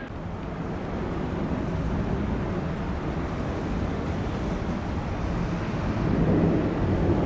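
Low, steady rumble of jet airliner engines at the airport, mixed with wind noise on the microphone, growing louder about six seconds in.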